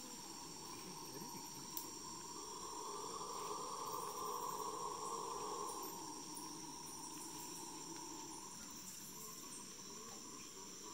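Amazon rainforest insect chorus: steady high-pitched trilling over a lower drone that swells for a few seconds in the middle, with one short click just under two seconds in.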